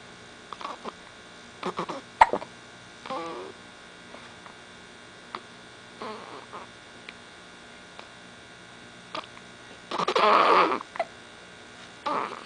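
Hiccups: short separate hics, some a second apart and some several seconds apart, with one longer, louder sound about ten seconds in.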